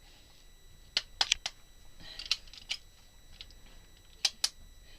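Handling of a TV remote's battery compartment. There are several sharp plastic clicks: a few close together about a second in, two more a little later with light rustling, and a quick pair near the end.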